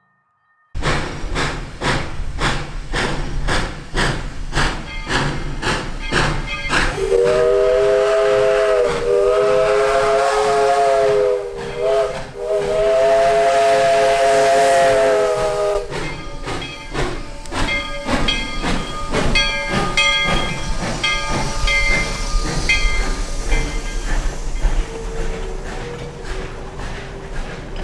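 Virginia & Truckee 4-6-0 No. 25 steam locomotive working: regular exhaust chuffs with hissing steam from the open cylinder cocks, then its steam whistle blowing two long blasts with a brief break between them. After the whistle, the wooden passenger coaches roll past with clicking wheels and short high squeals.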